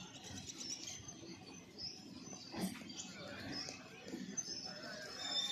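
Birds chirping faintly over quiet outdoor ambience.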